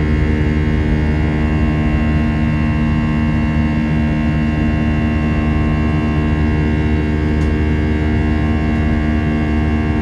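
Airbus A319's CFM56 turbofan engine at climb thrust heard inside the cabin: a steady, loud drone made of many even tones, the engine's buzzsaw sound, over the rushing noise of the climb.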